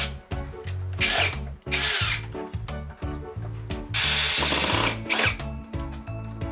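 Cordless electric screwdriver or drill-driver running in short bursts: a few brief runs, then a longer one about four seconds in. Background music with a steady beat plays underneath.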